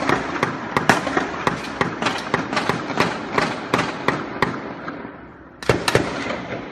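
Rapid gunfire: a long run of sharp shots in quick, irregular succession, about three to four a second. The shots break off for about half a second near the end, then start again.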